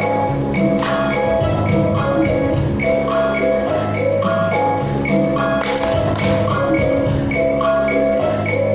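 Music with a steady, regular pattern of bell-like notes over held low notes, as accompaniment in a church choir performance.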